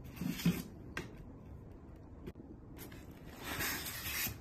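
Packing materials being handled in a cardboard box: rustling and scraping of the foam insert, hose and paper manual. There is a short rustle at the start, a light click about a second in, and a longer rustle near the end as items are lifted out.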